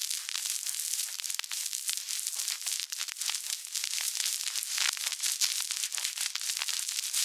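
Heavy vinyl record surface noise: a dense, continuous crackle of pops and clicks over hiss, with no bass. This is the sound of a badly damaged record.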